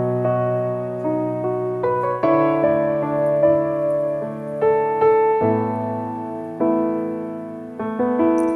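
Keyboard playing a slow, gentle run of sustained piano chords, each struck and left to ring and fade before the next.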